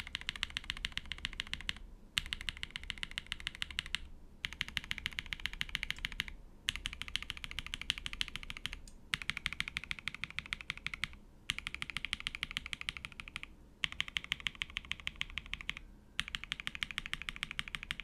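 Akko ACR PRO 75 acrylic-cased mechanical keyboard being typed on fast, with Tecsee Ice Candy linear switches lubed with Krytox 205g0 and lubed, tuned stabilisers under ASA-profile keycaps. The typing comes in about eight runs of rapid keystrokes, each around two seconds long, with short pauses between them.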